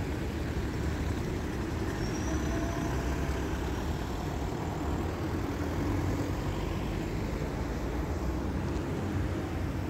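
Steady city street traffic with a low rumble from passing road vehicles, and a faint brief whine about two seconds in.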